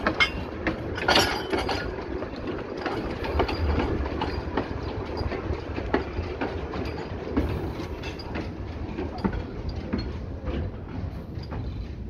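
2 ft gauge steam locomotive and its train running along the track, heard from the footplate: a steady low rumble with irregular clicks and knocks from the running gear and wheels on the rails. It grows quieter near the end.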